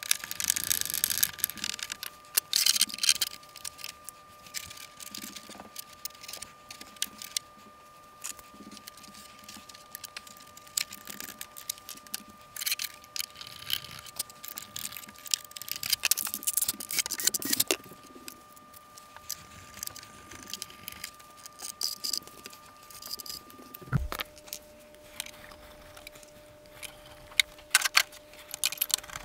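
Hands working small parts, tubing and wiring into a model jet's fuselage while a fuel tank is fitted: scattered rustling, tapping and clicking, with a faint steady hum underneath. A single low knock comes about five seconds before the end.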